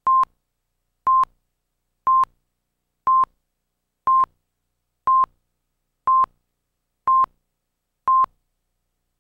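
Nine short electronic beeps of one steady pitch, one a second, then silence: a countdown tone at the head of a video tape.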